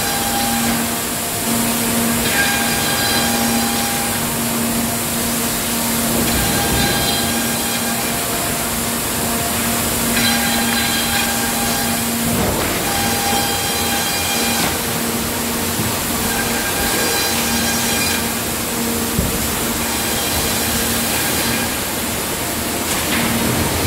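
Circular edging saw line (Vantec SCR edger with automatic outfeed) running: a steady machinery noise with a constant low hum, and a higher whine that rises and fades about every three to four seconds as boards pass through.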